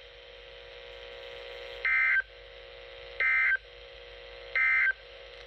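Three short bursts of EAS SAME digital data tones, each about a third of a second long and about a second and a half apart: the end-of-message code that closes a Severe Thunderstorm Warning alert. A steady hum runs underneath between the bursts.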